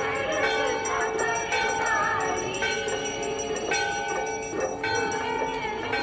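Temple bell struck in a steady rhythm, about once a second, each stroke ringing on until the next.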